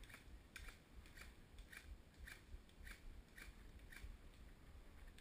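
Footsteps in dry fallen leaves, a steady walking pace of nearly two crunching steps a second.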